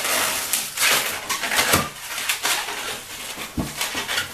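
Long latex twisting balloons squeezed and rubbed between the hands, giving a run of irregular squeaks and rubbing scrapes. The squeezing works the air along the balloons so they are easier to twist.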